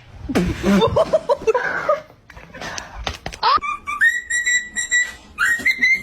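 Whistling: a note slides up and holds as one long steady high whistle for about a second, then a second whistle rises and holds near the end. Before it, a short spell of voice-like sound.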